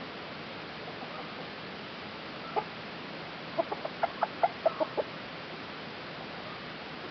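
Chicken clucking: one short cluck, then a second later a quick run of about ten clucks.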